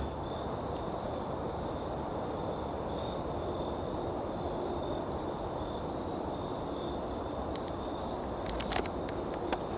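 Night insect chorus in the woods: a steady high-pitched trill, one part of it pulsing, over a constant low rustling hiss. A few sharp clicks, like twigs snapping underfoot, come near the end.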